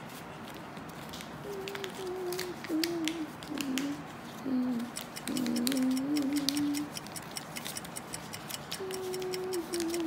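A child humming a wandering tune in short held notes, in two stretches with a pause between, over many small crinkles and taps of origami paper being folded and creased by hand.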